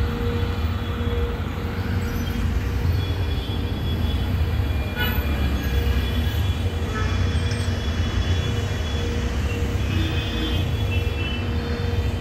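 Steady low rumble of a running vehicle engine, with a steady hum over it and a brief high squeak about five seconds in.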